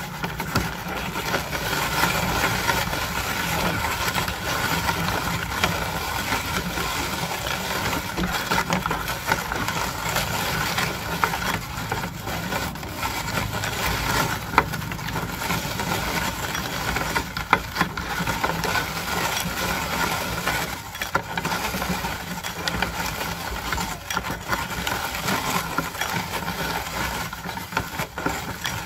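Hand-cranked metal meat grinder turning steadily as it grinds jackfruit: a continuous crunching grind with frequent small clicks.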